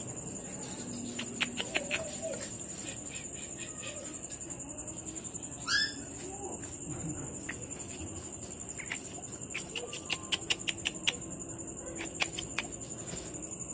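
A puppy's brief high squeak about six seconds in, over a steady high-pitched insect trill, with scattered sharp clicks in two clusters.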